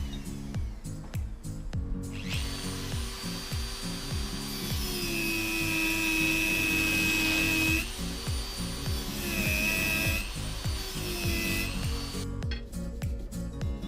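A power tool whining in bursts, the longest about three seconds midway and two short ones after it, over background music with a steady beat.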